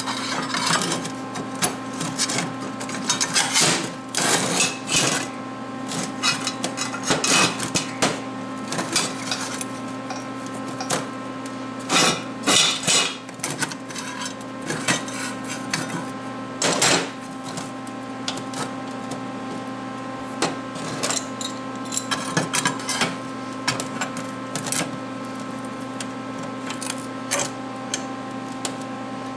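Irregular metal clanks, knocks and scrapes from steel pieces and a clamp being adjusted and shifted into position on a workbench, heavier in the first half, over a steady electrical hum.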